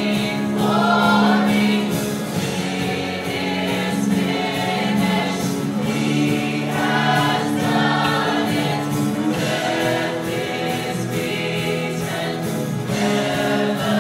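Music: a choir singing a slow Christian song in long held notes over a sustained accompaniment.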